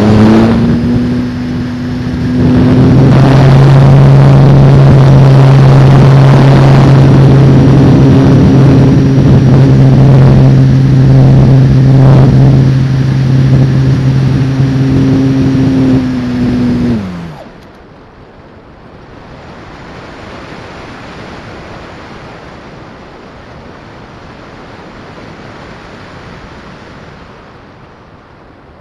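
Sailplane's nose motor and propeller running at a steady drone, easing off briefly in the first couple of seconds, then winding down in pitch and stopping about 17 seconds in. After that only air rushing past the airframe is heard as it glides with the propeller folded back.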